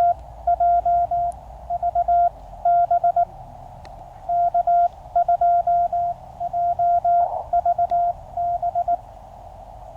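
Morse code (CW) from a QCX mini QRP transceiver: a single steady beep keyed on and off in quick dots and dashes over the receiver's narrow band of hiss. The keying stops near the end, leaving only the hiss.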